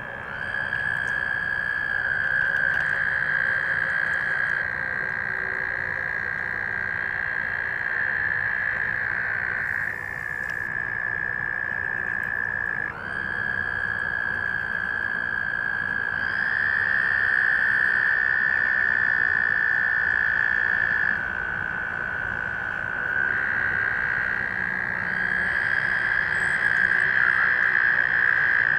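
Chorus of male American toads trilling: long, steady, high trills from several males that overlap at slightly different pitches, new ones starting as others stop. This is the males' breeding call to draw females to the pool.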